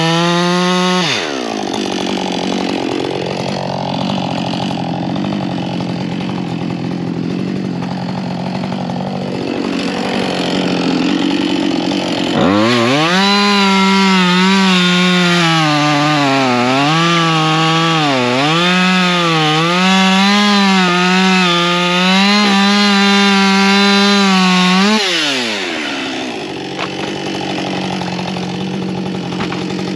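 Husqvarna 562 XP two-stroke chainsaw cutting dry ash on a new, out-of-the-box chain during break-in. It comes off high revs about a second in and runs slower for a while. It then opens up sharply and holds high revs for about twelve seconds, the pitch dipping and recovering as the chain loads in the wood, before dropping back.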